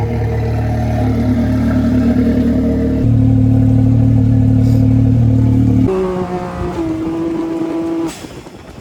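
Dirt bike engine running close by, its pitch shifting in steps about three and six seconds in, then falling away sharply about eight seconds in.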